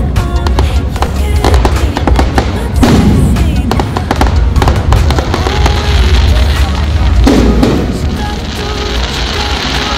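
Fireworks display: a rapid run of bangs and crackling from bursting aerial shells over a constant low rumble, easing slightly near the end.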